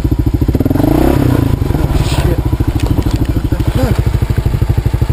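Kawasaki KLR 650's single-cylinder engine running under way, its exhaust pulses coming as a rapid, even beat.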